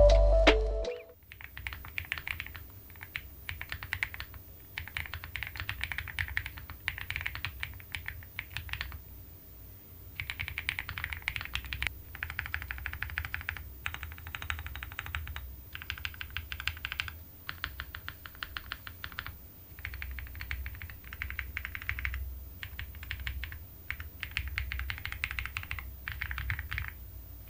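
Typing on a Solakaka Ki75 gasket-mount 75% aluminum mechanical keyboard with factory-lubed Weikav Coconut Latte linear switches: fast runs of keystrokes in bursts of a few seconds with short pauses between, a soft, muted clack.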